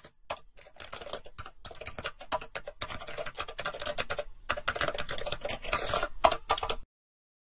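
Rapid computer-keyboard typing clicks used as a typing sound effect. The clicks come densely and irregularly, then stop abruptly near the end.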